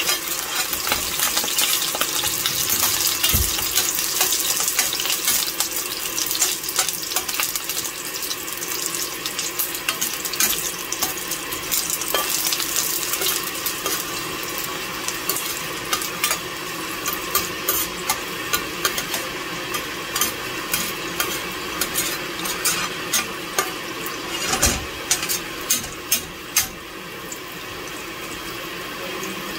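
Garlic, onion and ginger sautéing in hot oil in a stainless steel pot: a steady sizzle full of fine crackles that settles a little lower about halfway through, when separate louder pops stand out. Two dull knocks come through, one a few seconds in and one near the end.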